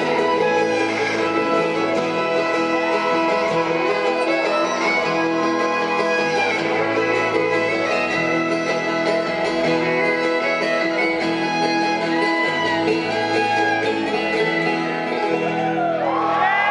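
Live bluegrass string band playing: fiddle bowing over banjo, mandolin and acoustic guitar.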